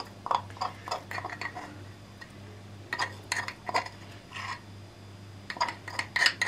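Garlic cloves being crushed in a dish: a utensil knocks and clinks against it in short irregular clusters of strikes, over a faint steady low hum.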